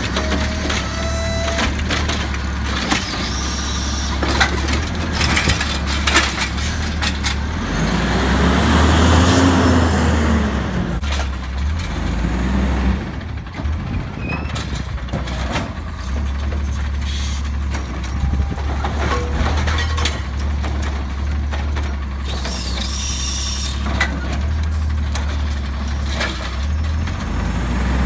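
Automated side-loader garbage truck working at the curb: its diesel engine runs steadily while the hydraulic arm lifts and tips a cart into the hopper, with metal knocks and clanks. The engine speeds up briefly about eight seconds in, and there are air-brake hisses.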